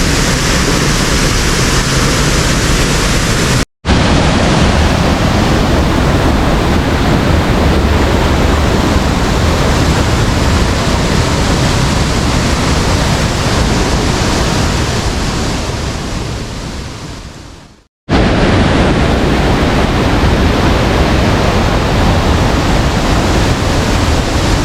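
Loud, steady rush of a waterfall heard up close. It drops out suddenly to silence twice, and the second time it fades away over a few seconds first.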